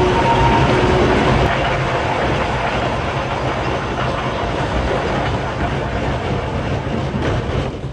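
Volk's Electric Railway narrow-gauge electric car running along its track, with a steady rumble from wheels on rail. A steady whine stops about a second and a half in.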